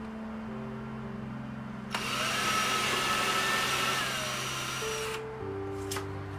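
Ryobi cordless drill driving a wood screw into a drawer box: the motor whines for about three seconds, starting about two seconds in, its pitch dropping near the end before it stops.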